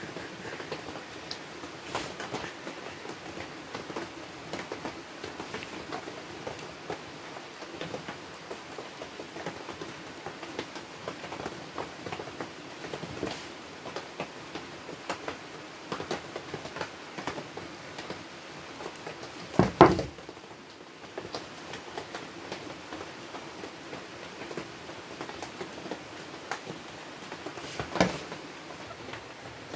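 Small scattered clicks and taps of wires and a plastic switch plate being handled and fitted by hand, over a steady background hiss, with a sharp knock about two-thirds of the way through and another near the end.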